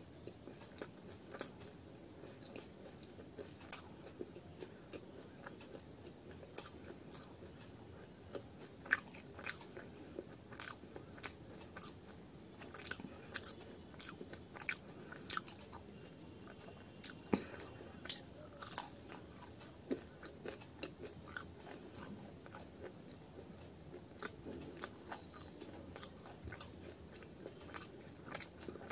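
A person chewing fried muli ki kachori (radish-stuffed fried pastry), giving irregular crisp crunches and mouth clicks.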